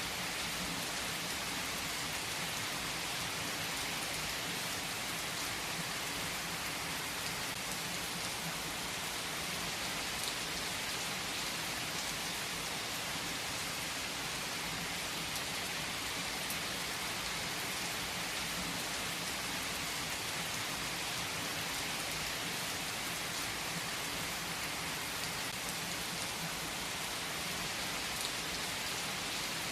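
Steady rain falling and pattering, with a few faint crackles from a fireplace scattered through it.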